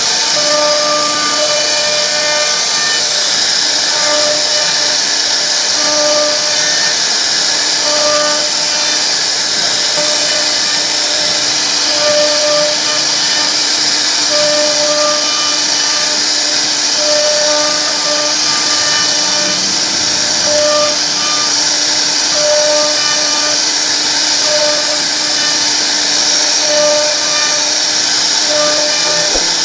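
CNC router spindle cutting into a wooden panel: a loud, steady high whine and hiss of the bit in the wood. Short humming tones at a fixed pitch come and go every second or two.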